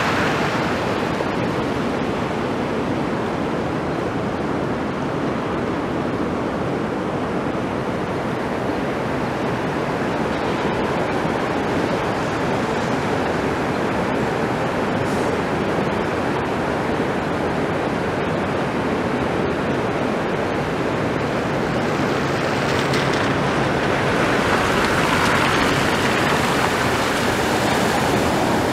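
Fast-flowing floodwater rushing over a road, a steady rush of noise. In the last few seconds a GMC Yukon XL drives through the water, its low engine hum and splashing spray swelling the sound a little.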